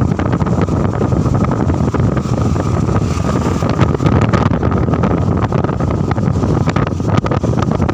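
Heavy wind rush on the microphone from a vehicle moving at speed, mixed with road and engine noise.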